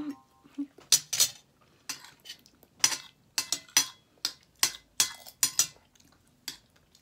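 A metal spoon clinking and scraping against a ceramic plate while eating, a noisy run of irregular sharp clinks, one to three a second.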